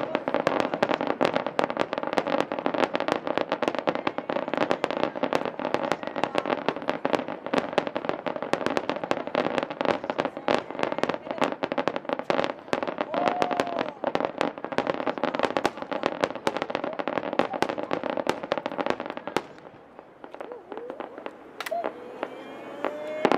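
Fireworks finale: a dense, rapid barrage of shell bursts and crackle. The barrage breaks off about twenty seconds in, leaving a short lull with a few faint whistles, and bursts start again just before the end.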